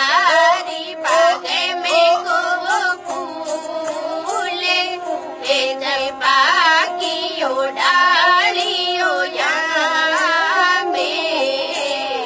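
A high voice singing a heavily ornamented melody with wide, wavering vibrato over a steady drone.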